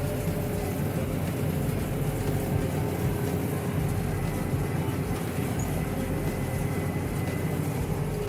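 Tractor pulling a round hay baler in the field, engine and baler running steadily with a thin, even whine over a low rumble.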